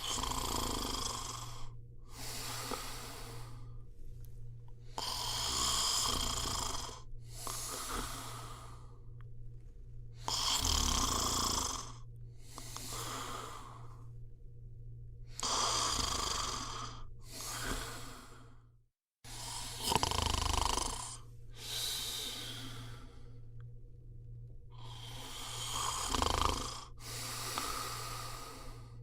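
A person snoring: rasping breaths in and out, each lasting a second or so, repeating regularly over a steady low hum. The sound cuts out completely for a moment about two-thirds of the way through.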